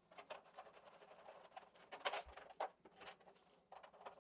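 Faint clicks and scrapes of a hand screwdriver turning a screw into the wiring cover plate on top of an electric water heater, with a couple of sharper clicks about two seconds in.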